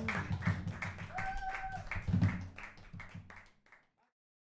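Small audience applauding, many hands clapping, fading out to silence about four seconds in.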